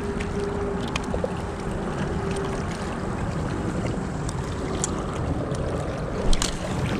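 Wind buffeting the microphone: a steady low rumble and hiss, with a few light clicks and a sharper tap about six seconds in.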